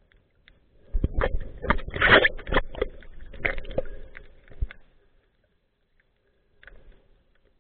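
Underwater bubbling and crackling in a burst of several seconds made of many sharp clicks over a low rumble, stopping about two-thirds through, with another burst starting near the end.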